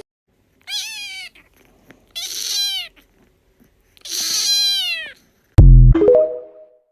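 Domestic cat meowing three times, each meow falling in pitch at its end. Near the end there is a short, very loud low sound, the loudest thing heard, followed by a brief fading tone.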